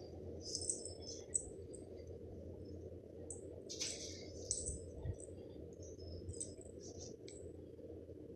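Clear plastic sheeting crinkling in short, scattered crackles as a toy is dragged over it and the cat shifts on it, over a steady low hum.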